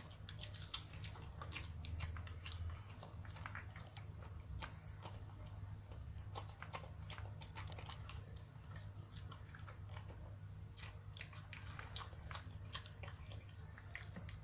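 Small dog (a Pekingese) chewing and crunching a hard cheese biscuit, with irregular crackly crunches throughout.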